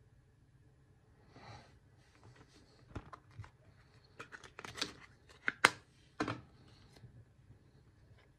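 Plastic packaging crinkling and crackling as it is handled, with a few soft clicks and then a run of sharp crackles in the middle.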